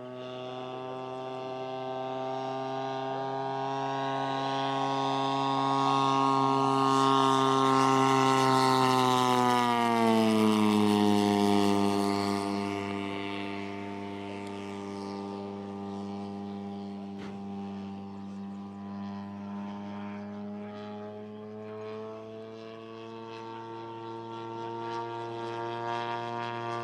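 Engine and propeller of a large-scale RC Sea Fury warbird model droning in flight. It grows louder as the plane approaches, and the pitch drops about ten seconds in as it passes, then the drone runs steady and quieter as the plane flies on.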